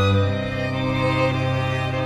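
Background music of slow, held chords, shifting to a new chord about half a second in.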